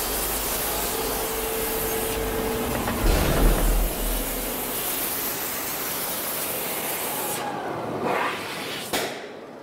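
Gas torch flames hissing steadily against a steel disc turning on a metal lathe during hot spinning, with a heavy low rumble about three seconds in. The hiss thins out near the end, and a sharp click follows.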